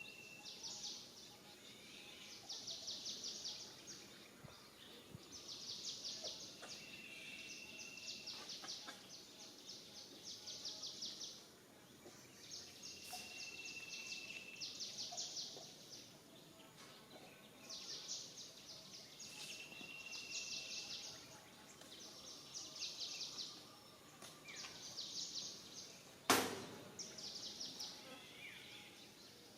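Outdoor wildlife calls: rapid pulsing trills, each about a second long, repeat every couple of seconds, with a short level whistle about every six seconds. A single sharp click comes near the end.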